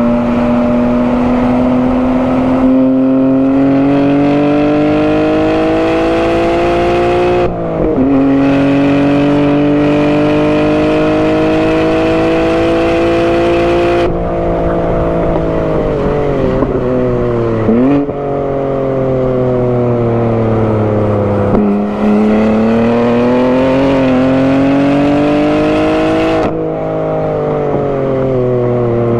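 BMW G80 M3's 3.0-litre twin-turbo inline-six, breathing through a non-resonated single midpipe, driven hard on track with the manual gearbox. The engine note climbs under acceleration and drops sharply at an upshift about a quarter of the way in, then pulls again. Around halfway the driver lifts off and the pitch falls, with a quick rev blip on a downshift. Another pull follows, and the driver lifts again near the end.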